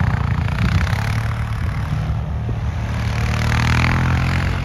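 Quad (ATV) engine running under throttle as the quad drives tight circles in the snow, its note rising and falling a little.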